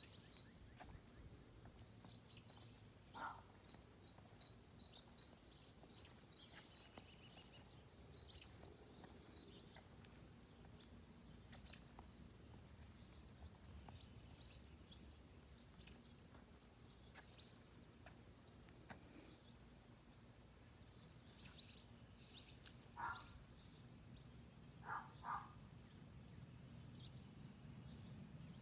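Faint chorus of crickets or similar insects, a high, rapidly pulsing trill that holds steady throughout. A few short chirps stand out, one a few seconds in and three near the end.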